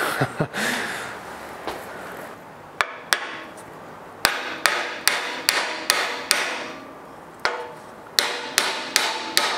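Hammer tapping a tight-fitting wooden half-lap miter joint down into place: over a dozen light taps, coming in runs of about two to three a second, each with a short ring.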